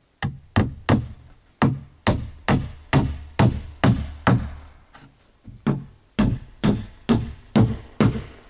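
Hammer blows driving nails into wooden wall planks: a steady run of sharp strikes, about two a second, with a short pause near the start and another in the middle.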